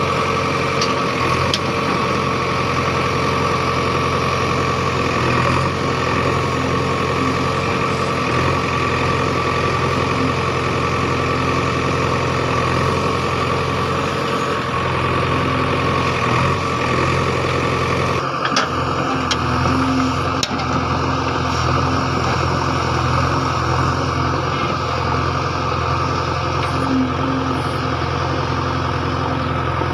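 Diesel engine of a JCB digger running steadily, its tone shifting about two-thirds of the way through, with a few sharp clicks soon after the shift.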